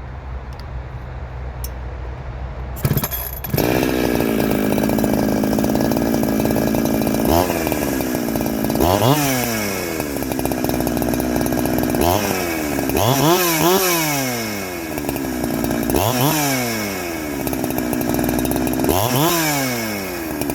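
Two-stroke chainsaw with a shotgun-style pipe muffler being restarted, catching about three seconds in and settling to idle. It is then blipped up to revs about five times, each time falling back to idle, to check the throttle response after its low-speed jet was richened.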